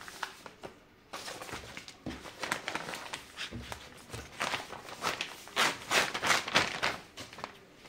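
Plastic packaging of a cross-stitch kit rustling and crinkling as it is handled and packed away, with irregular crackles that grow louder in the second half.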